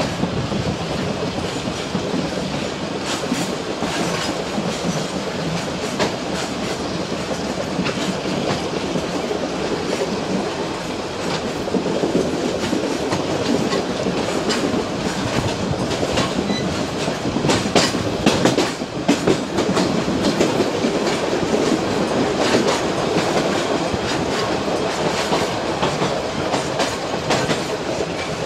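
Metre-gauge passenger train running along the track, heard from aboard a coach: a steady rumble of wheels on rail with frequent clickety-clack clicks over the rail joints.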